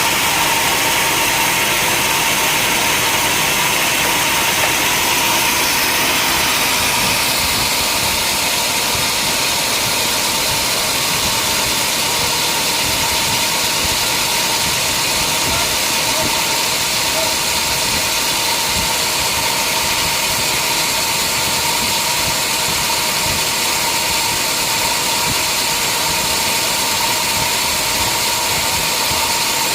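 Sawmill machinery running steadily: a constant whine over a loud hiss, whose character shifts slightly about seven seconds in.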